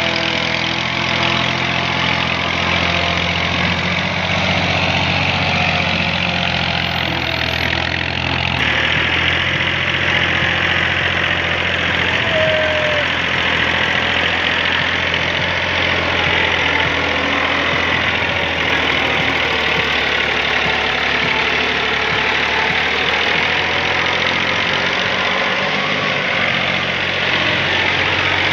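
Massey Ferguson tractor's diesel engine running steadily under the load of a full trolley, with a sudden change in its sound about nine seconds in.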